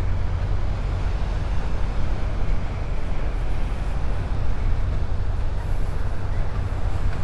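Beach ambience on a walk: a steady low rumble of wind on the phone's microphone over the hiss of small surf.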